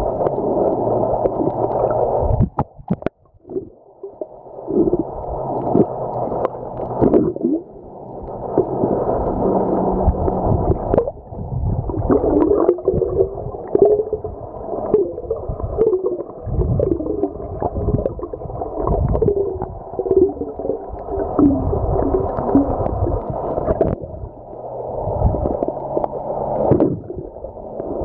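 Muffled underwater sound of water rushing and gurgling around a submerged camera housing, with a brief lull about three seconds in.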